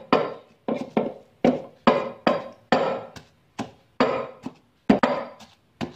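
Wooden pestle pounding a wet paste of shrimp paste and seasonings in a mortar: a steady run of dull knocks, about two to three a second, each with a short ringing decay.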